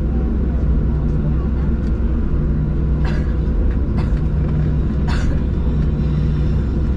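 Cabin noise inside a Boeing 737-700: a steady, loud rumble from its CFM56-7 jet engines, with a few short knocks or rattles about three, four and five seconds in.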